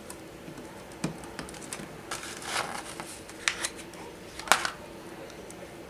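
Hands handling a plastic grille insert and a sheet of vinyl overlays: a few sharp clicks and taps, the loudest about four and a half seconds in, with a brief papery rustle of the sheet around the middle.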